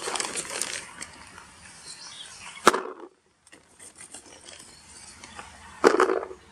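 Clear plastic bait bag rustling as a hand digs out strawberry boilies. A sharp knock comes a little under three seconds in, and near the end the boilies are tipped into a plastic bucket.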